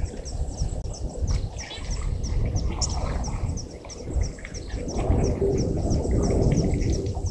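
Waterhole ambience: a short, high, falling chirp repeating evenly about three times a second over loud, irregular low rumbling noise.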